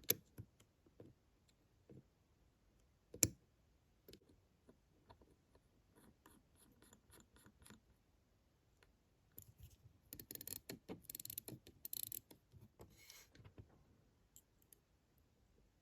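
Small metal watchmaker's tools clicking and scraping against the parts of a Waltham pocket watch movement: scattered light clicks, one sharper click about three seconds in, and a run of quick scratchy strokes from about ten to thirteen seconds in.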